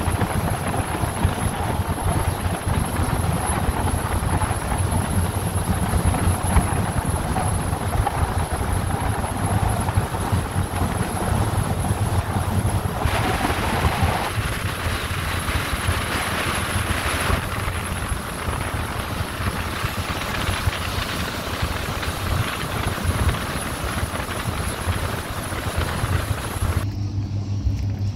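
Express river passenger boats running at speed: a steady heavy engine drone under the rush of wake water and wind. Near the end it changes abruptly to a steadier, lower hum.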